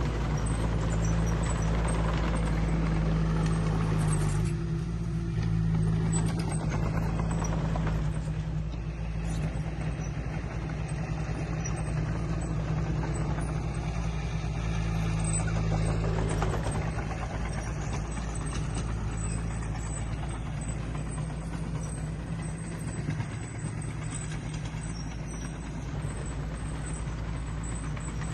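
Diesel engine of heavy earthmoving equipment running steadily at work: a steady low engine note with rough mechanical noise on top.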